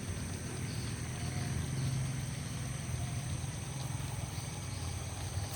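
Tractor engine running steadily: a low, even drone.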